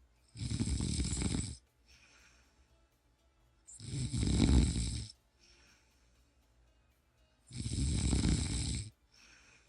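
A person snoring: three loud snores about three and a half seconds apart, with a softer breath between each.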